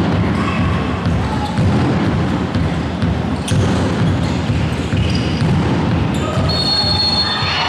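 Handball game sounds in a reverberant sports hall: the ball bouncing on the hall floor and players' footsteps thumping irregularly, with scattered voices. A brief high steady tone sounds near the end.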